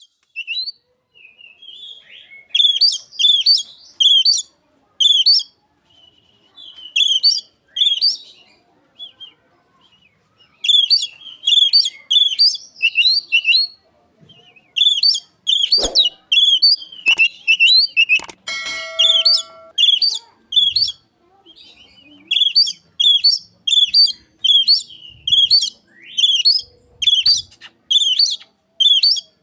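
Oriental magpie-robin (kacer) singing in quick, repeated phrases of high whistled notes, about one phrase a second with short pauses between runs, mimicking Asian pied starling (jalak suren) calls. A single click sounds partway through, and a short low tone follows a few seconds later.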